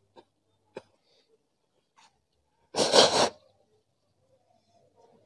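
A man weeping: a couple of faint short sniffs, then about three seconds in one loud, wet, choked sob lasting about half a second.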